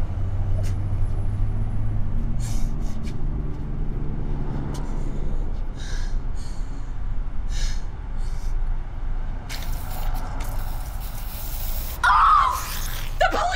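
A young woman crying, with a string of sharp gasping breaths, then a short, loud scream about twelve seconds in. A low engine hum sits under the first few seconds.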